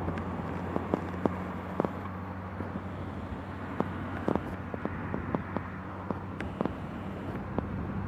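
A distant engine running with a steady low drone, with scattered sharp clicks over it.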